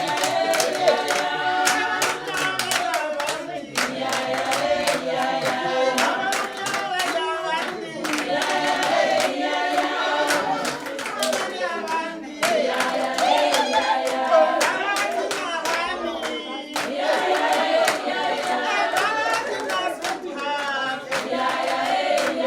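A group of voices singing together, accompanied by hand clapping.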